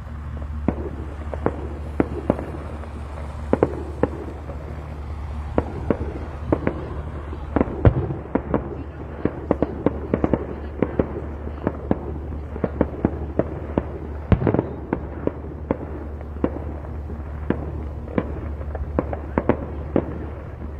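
Fireworks display: a rapid, irregular run of sharp bangs and pops, densest in the middle and latter part, over a steady low hum.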